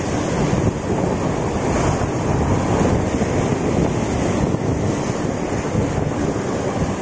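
Sea surf washing ashore, with strong wind buffeting the microphone: a steady, dense rushing noise.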